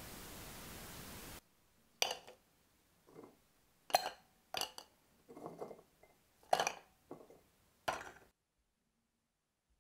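Whole Oreo cookies dropped one after another into a clear food-chopper bowl, each landing as a sharp click or clatter, about eight in all. They follow a steady hiss that cuts off after about a second and a half.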